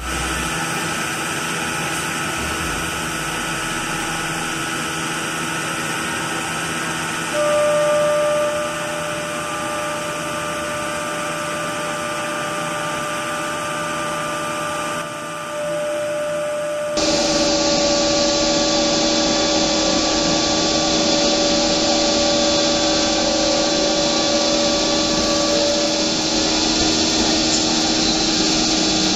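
CNC six-sided panel drilling machine running with a steady mechanical hum. A steady whine comes in about seven seconds in, and the sound changes abruptly about seventeen seconds in.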